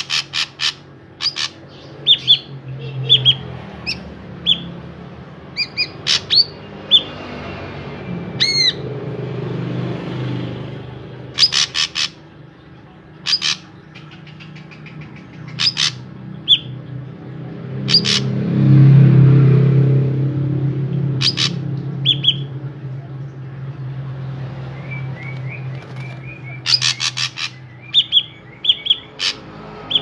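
Ashy drongo calling in irregular bursts: short clear whistled notes mixed with harsh rasping calls and a few curved whistles. A low drone swells in the background about two-thirds through.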